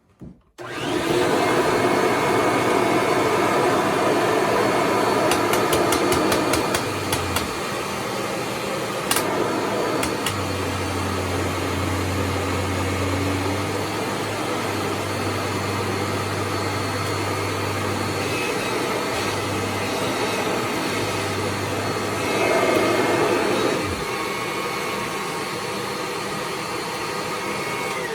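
Kirby G4 upright vacuum cleaner switched on and running steadily. About seven seconds in, its sound drops and a low hum comes in as the brush roll meets the carpet, where it jams and doesn't spin well. The owner suspects a stretched belt clogged with animal hair. Near the end the motor winds down.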